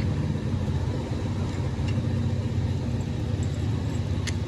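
An engine running steadily: a low, even rumble with no change in speed, and a faint tick near the end.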